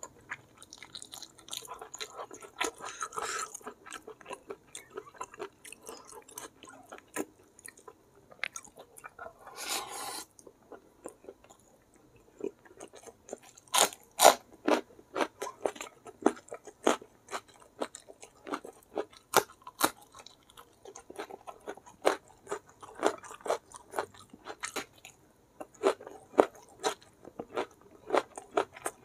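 Close-miked chewing of a mouthful of goat curry and rice eaten by hand: wet smacks and sharp crunchy clicks following one another irregularly. A short hiss stands out about ten seconds in.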